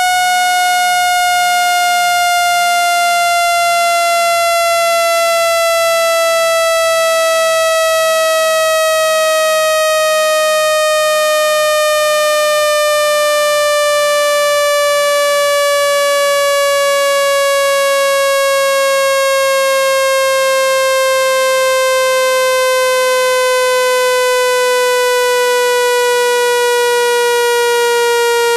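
Electronic speaker-cleaning tone: a loud, steady, buzzy tone, dense with overtones, gliding slowly and evenly down in pitch.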